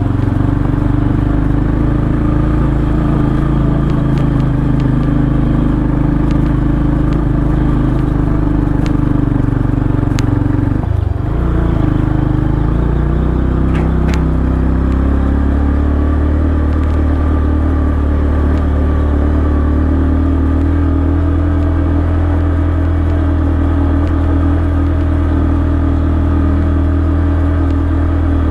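Motorcycle engine running steadily under way, heard on board. About eleven seconds in the engine note briefly breaks and then settles at a different pitch, with a stronger low hum.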